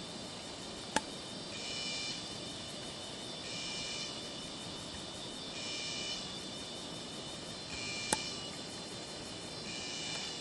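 An insect calling in a high buzzing trill that comes in phrases about a second long, repeating roughly every two seconds. Two sharp clicks sound, one about a second in and one about eight seconds in.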